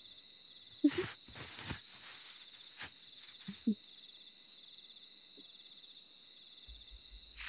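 Crickets chirring steadily in a high, pulsing band as night ambience, with a few soft rustles of cloth or netting between about one and three seconds in.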